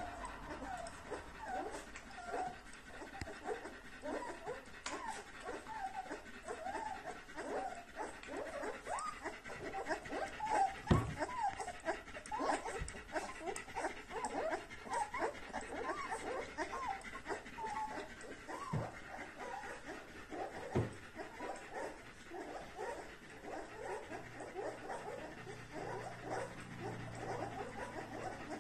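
Three-week-old German Shepherd puppies whimpering and squeaking in small rapid cries, several a second, as they nurse, with the mother dog panting. A few soft bumps come in between, the clearest about eleven seconds in.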